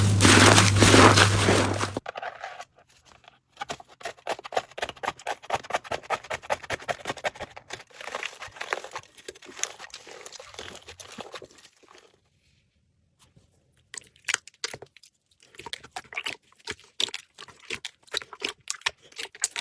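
Slime being pressed and squished, giving runs of quick crackling clicks and pops. The first two seconds are louder; after that the crackling is softer, with a pause of about two seconds in the middle.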